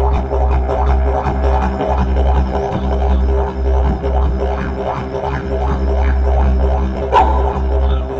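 Background music led by a deep didgeridoo drone that pulses about once a second under a busy rhythm.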